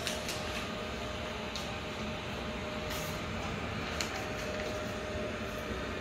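Steady hum of idle, powered-on wire-processing machinery, with one steady tone and a few faint clicks.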